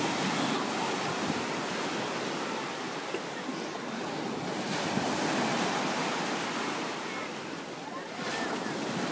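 Ocean surf breaking and washing up onto a sandy beach: a steady rush of waves that swells and eases, dipping briefly near the end.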